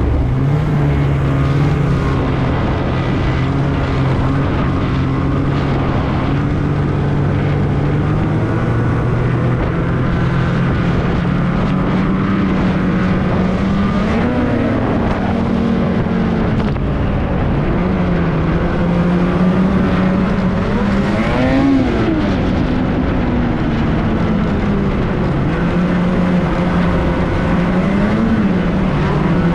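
Snowmobile engine running under way. It holds a steady pitch at first, then rises and falls several times as the throttle opens and closes.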